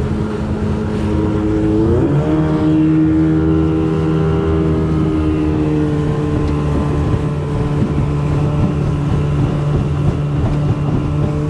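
Wooldridge jet boat's engine running, revving up about two seconds in and then holding a steady, higher pitch as the boat runs at speed.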